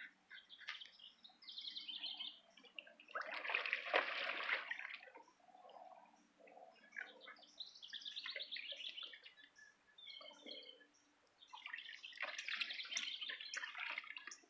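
Water sloshing and splashing in a shallow plastic kiddie pool as a Doberman moves about in it, loudest about four seconds in and again near the end. Songbirds chirp in between.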